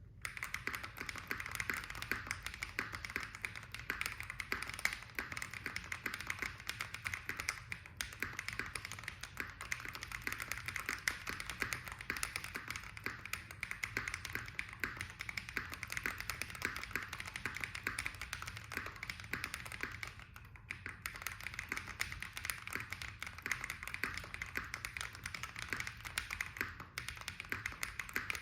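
Continuous fast typing on a custom Tofu65 acrylic-case mechanical keyboard with lubed Holy Panda tactile switches on a brass plate. It gives a dense stream of clacking keystrokes, with brief pauses about 8 and 20 seconds in.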